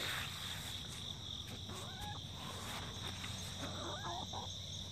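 Steady, high-pitched chorus of insects, with a couple of faint, soft chicken calls about two and four seconds in.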